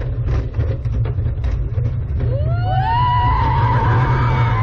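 E&F Miler Hi-Miler steel roller coaster train running along its track, with a loud steady rumble of track noise and wind on the ride-mounted microphone. About two seconds in, a high squeal of the wheels on the steel rails rises and holds for about three seconds.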